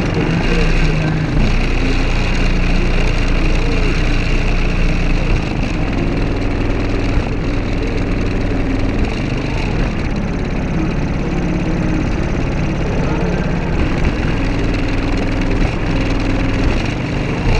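Car audio subwoofers playing loud, deep bass, with held low notes that change pitch every few seconds. The system is three 15-inch subwoofers on a single 15-inch port tuned to 33 Hz.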